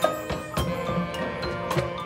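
Marching band playing, with mallet keyboard percussion from the front ensemble struck in a steady beat over held wind chords.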